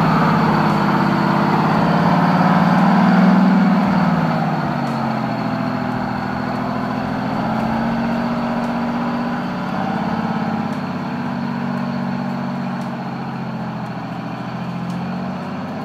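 Heavy truck's diesel engine pulling under load through deep mud. The revs climb over the first three seconds, ease off about four seconds in, and then hold fairly steady.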